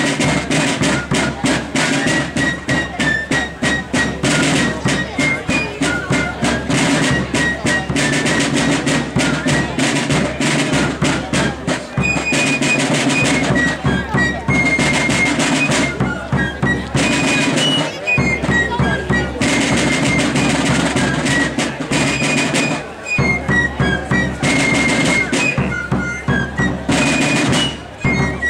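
Fife and drum corps playing a tune: high, shrill fifes carry the melody over rapid rope-tension snare drum rudiments and rolls, with a rope-tension bass drum keeping the beat.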